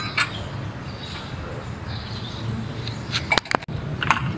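Metal roof brackets and tools clinking and knocking as they are handled, with a few sharp knocks about three and a half seconds in, over a steady low hum.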